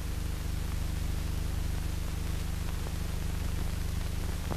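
Steady hiss with a low electrical hum underneath: the noise floor of a silent newsreel's blank soundtrack, with no sound of the pictured scene.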